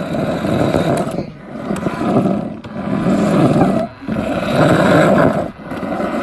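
Loud rumbling noise picked up by a phone riding on a moving toy car, in surges of about a second and a half broken by brief dips.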